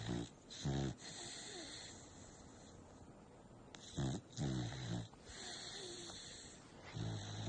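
American bully dog snoring loudly in its sleep: short pitched snores in pairs at the start and about four seconds in, and another near the end, with quieter breathing between.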